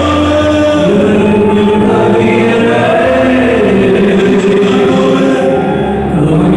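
Devotional vocal music: voices singing a slow choir-like chant in long held notes over a low steady drone.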